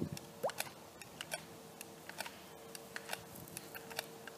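Scattered faint clicks and ticks, irregular, a few a second, over a faint steady hum, with one short rising whistle-like glide about half a second in.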